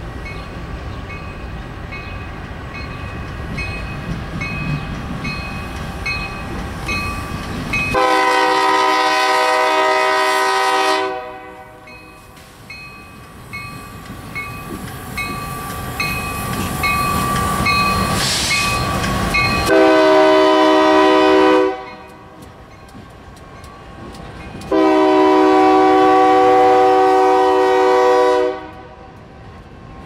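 Union Pacific diesel locomotives hauling a freight train pass close by, sounding the multi-chime horn in three blasts: one about eight seconds in, a shorter one around twenty seconds, and the longest about twenty-five seconds in. Under the horn are the rumble of the engines and the wheels on the rail. A bell rings at a steady pace through the first half.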